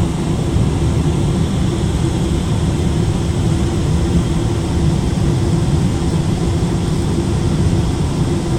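Steady low rumble of a Boeing 777 airliner heard from inside the cabin: engine and airflow noise with a constant hum.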